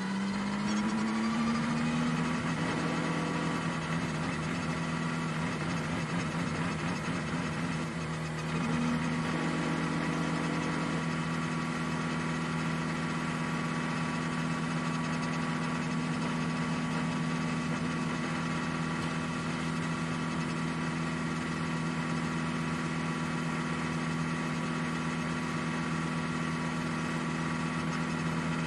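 Ferrari 499P hypercar's twin-turbo V6 heard from the onboard camera, rising in pitch as the car accelerates, dipping briefly about eight seconds in, then holding one steady pitch.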